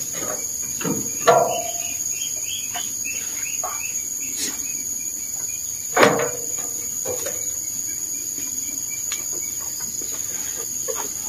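A shovel scooping sheep droppings off the ground and tipping them into a wheelbarrow: a few short knocks and scrapes, the loudest about six seconds in as a load lands in the tray. Under it runs a steady high insect drone.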